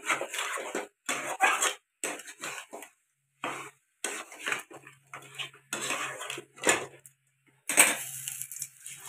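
Long metal spatula scraping and knocking against a kadai as crab pieces are stirred and fried in thick masala, in irregular strokes about one or two a second with short pauses between them.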